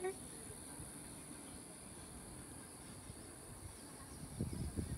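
Insects in the trees keep up a steady high-pitched shrill. A few low thumps and rustles come in near the end.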